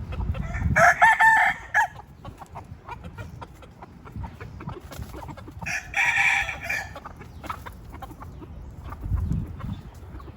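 A rooster crows twice, each crow about a second long, the first near the start and the second about halfway through. Between the crows there is faint clucking, and a low rumble comes near the end.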